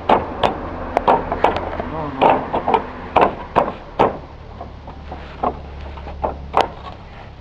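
Roof tiles clacking against one another and the roof battens as they are laid by hand: over a dozen sharp, irregular knocks, coming thickly for the first four seconds and more sparsely after.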